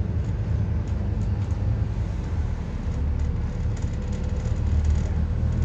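Scania N230UD double-decker bus's five-cylinder diesel engine running under way, heard from inside the passenger cabin as a steady low rumble that grows a little stronger in the second half.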